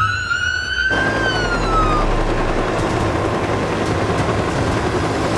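Police car siren winding up into a wail, then falling away and fading within the first two seconds. It gives way to the steady whooshing run of a police helicopter.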